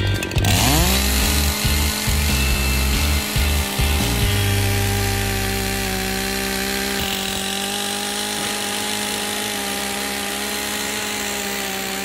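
Echo two-stroke chainsaw revving up to full throttle about half a second in, then running at steady high revs while its bar bores a plunge cut (the letterbox) through the centre of a small tree's trunk.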